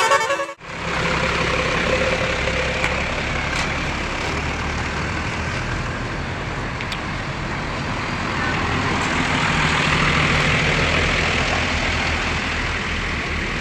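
A multi-tone telolet bus horn tune cuts off about half a second in. Then comes a steady run of heavy-vehicle engine rumble with road and traffic noise, which grows a little louder around ten seconds in and then eases.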